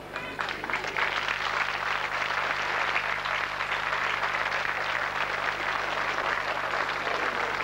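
Audience applauding: steady clapping that starts about half a second in and holds.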